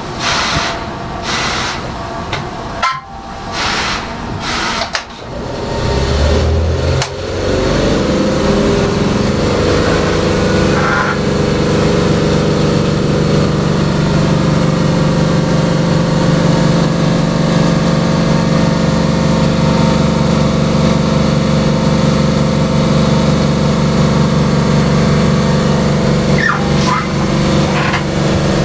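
A preserved railway vehicle's engine starts up about six seconds in, its pitch rising, then settles into a steady run. A few short bursts of hissing come before it.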